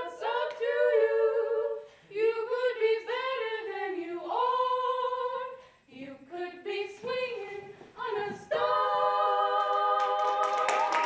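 A small vocal group singing a cappella in close harmony, several voices moving together, ending on a long held chord in the last few seconds.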